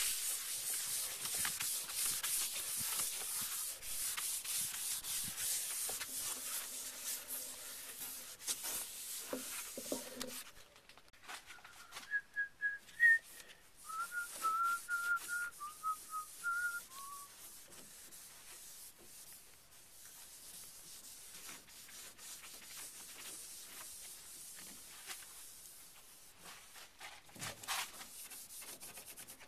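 Foam applicator pad rubbing paste wax onto a pontoon mold as a release coat, a steady scuffing hiss. About twelve seconds in there is a few seconds of wavering whistling, and after that the rubbing goes on more faintly.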